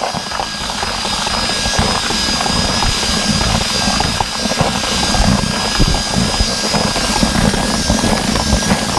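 Cordless drill running steadily with a whisk-type mixing paddle, churning dry groundbait in a plastic bucket before any water is added. The motor's steady whine sits over a gritty rustle of the dry mix.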